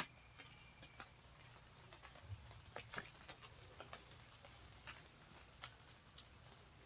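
Scattered light ticks and pattering of condensation dripping off fog-soaked leaves, heard at near-silent level, with one sharp click right at the start.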